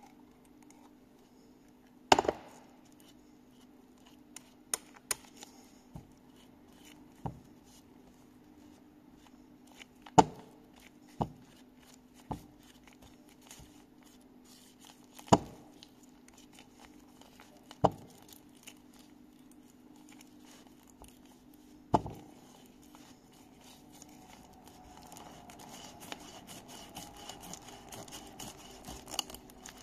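Sharp knocks and clicks at irregular intervals, about a dozen, as a steel needle roller bearing is handled and knocked on a workbench while grease is packed into it, over a steady low hum. Near the end a soft, continuous rubbing and squishing as gloved fingers press grease into the rollers.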